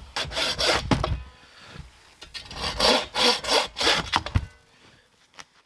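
Hand saw cutting through a maple log in quick back-and-forth strokes, a short run of strokes, a pause, then a longer run at about three strokes a second.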